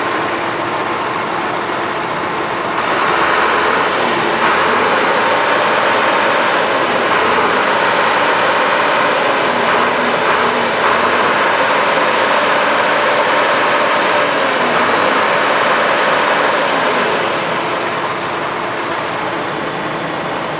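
Heavy harvest machinery engine running steadily, louder for most of the stretch and easing off near the end, with a faint high whine rising and falling.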